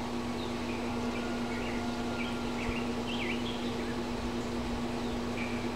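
Brewing pump running with a steady hum while it purges sanitizer from the line ahead of the wort, with a few faint high chirps over it.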